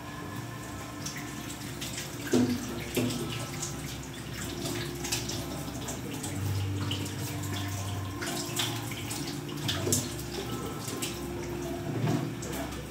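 Tap water running into a kitchen sink while something is rinsed under it by hand, with scattered clinks and knocks against the sink.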